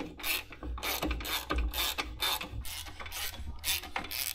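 Hand ratchet wrench clicking in quick repeated strokes, about three a second, as the lower mounting bolt of a motorcycle rear shock is run in.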